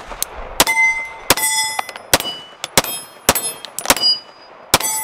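Cosaint Arms COS21 double-stack 1911 in 9mm firing about eight shots at an uneven pace, roughly one every half second to a second. Most shots are followed by the short ring of a steel target plate being hit.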